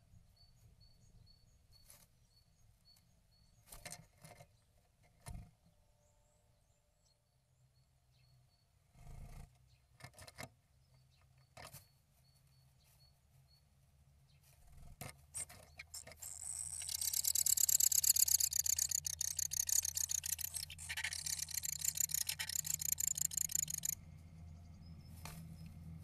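Great tits moving about inside a wooden nestbox lined with moss: scattered scratches and taps on wood and moss, then, about two-thirds of the way in, a loud, rapid, high-pitched buzzing rattle for several seconds that stops suddenly. A low steady hum runs underneath.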